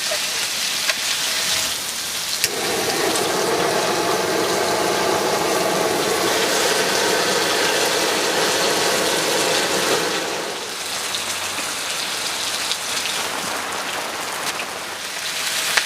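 Heavy rain falling steadily, with an added lower rushing noise for several seconds, starting about two and a half seconds in and fading out around ten seconds.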